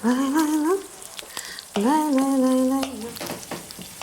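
A person's voice sounding two drawn-out wordless notes, the first rising in pitch, the second held steady about two seconds in, over a steady hiss.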